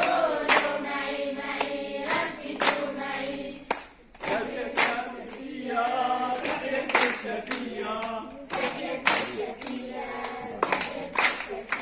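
A group of cub scouts singing a scout song together in Arabic, repeating the lines after a leader, with hand claps about once a second.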